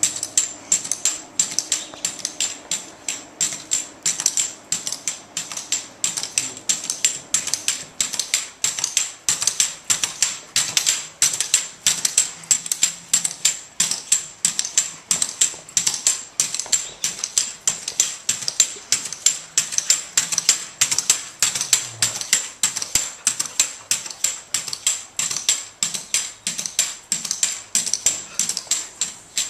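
Pogo stick bouncing on pavement: a sharp metallic clack at each bounce, in a steady quick rhythm of two or three a second.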